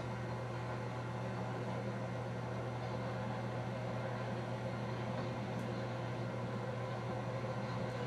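Steady low hum over an even hiss, unchanging throughout, with no distinct events.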